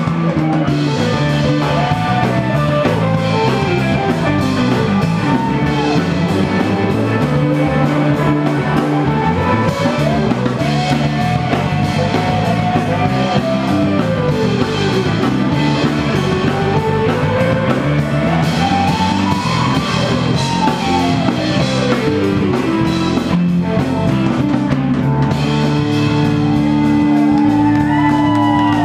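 Live rock band playing an instrumental jam: drum kit, bass and electric guitars, with a lead line gliding up and down in pitch in long sweeps. Near the end a held note comes in and the band gets slightly louder.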